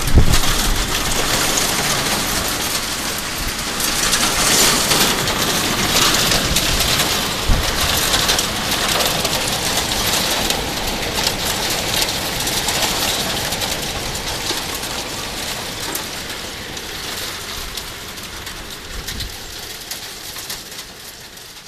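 Heavy rain pouring in a windstorm, with wind gusts buffeting the microphone in low thumps at the start and about a third of the way in. It eases off gradually toward the end.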